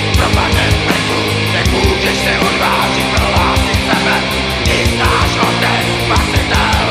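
Loud heavy metal band recording: distorted guitars and bass held over drums that strike many times a second.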